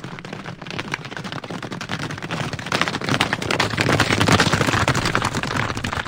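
Hoofbeats of a large herd of horses galloping on a dirt track: a dense, rapid drumming of many hooves that grows louder about three seconds in.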